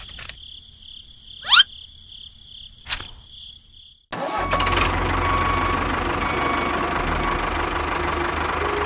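A faint high steady tone with a quick rising whistle and a single knock. Then, about four seconds in, an engine starts and runs steadily with a low rumble.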